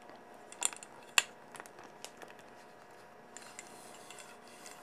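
Faint clicks and light taps of a GoPro handlebar mount and telescoping stern-light pole being handled, with one sharper click about a second in.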